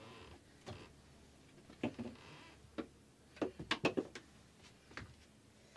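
RV slide-out room being retracted: irregular clicks and knocks, several close together about three and a half to four seconds in, over a faint low hum.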